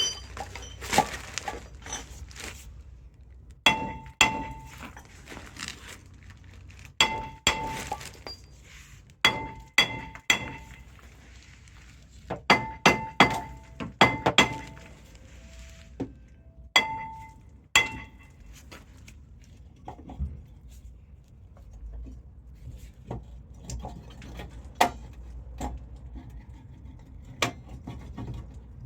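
Hammer blows on a spare front brake disc bolted onto the hub with lug nuts, used as a makeshift puller to drive out the rear wheel bearing; each blow makes the disc ring. The blows come in groups of two to four for the first two-thirds, then give way to lighter taps and clicks.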